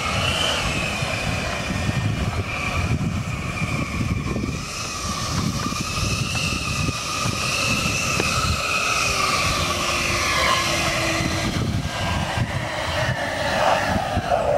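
Homemade RC jet boat's electric motor whining as it drives across the water, its pitch wavering up and down with the throttle, over a low rumble of wind and water noise.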